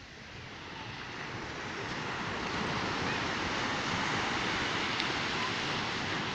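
Sea surf breaking and washing up a sandy beach, swelling louder over the first few seconds and then steady, with wind rumbling on the microphone.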